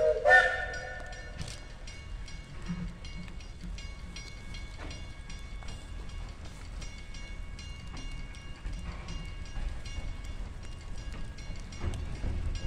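NGG16 Garratt narrow-gauge steam locomotive sounding a short whistle blast, about a second long, at the start, then running light with a low rumble that grows louder near the end as it comes closer. A level crossing bell rings steadily throughout.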